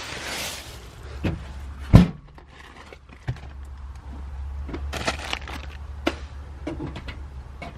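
Loose items being rummaged through and handled in a truck's back seat: rustling and small clicks and knocks, with one sharp thump about two seconds in, over a low steady hum.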